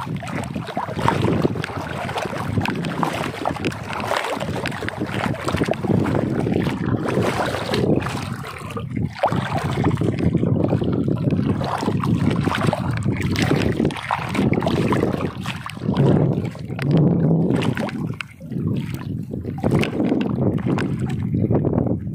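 Wind buffeting the microphone in gusts, with water sloshing and splashing.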